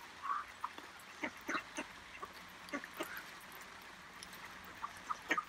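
Mallard ducks feeding on corn on wet ground: an irregular scatter of short clicks and taps from their bills pecking, with a brief soft duck call about a quarter second in.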